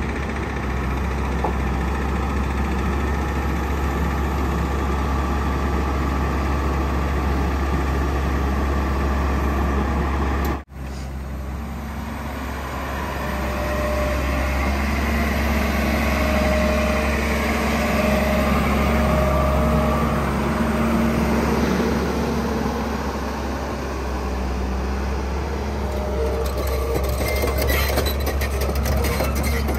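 JCB JS205 tracked excavator's diesel engine running under load while it works its hydraulics, swinging and levering itself off a trailer. The sound drops out briefly about ten seconds in, then grows louder with a steady hydraulic whine over the engine. Rapid clanking of the steel tracks comes near the end as the machine tips down off the trailer.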